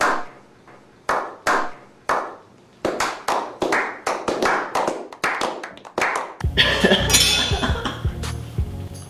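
Slow clap by a small group: single hand claps spaced out at first, then coming faster and closer together, cut off abruptly about six seconds in. Background music follows.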